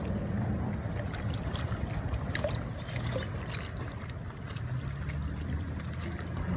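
Shallow seawater lapping and trickling among rocks, with scattered small ticks and splashes over a steady low rumble.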